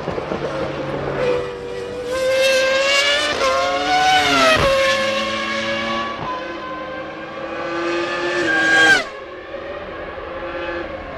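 Formula One racing cars' engines at high revs, the screaming pitch climbing, dropping sharply about four and a half seconds in, then climbing again to the loudest point near nine seconds before breaking off abruptly.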